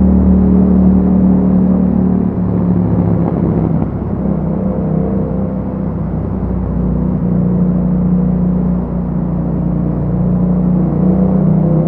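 2021 Yamaha MT-07's 689 cc parallel-twin engine running under way through an Akrapovic exhaust, heard from the bike. The note drops a little about two seconds in, then holds fairly steady, swelling slightly near the end.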